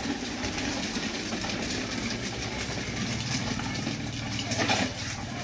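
Hard plastic wheels of a foot-pushed ride-on toy car rolling over paving tiles: a continuous rattling rumble, with one louder knock near the end.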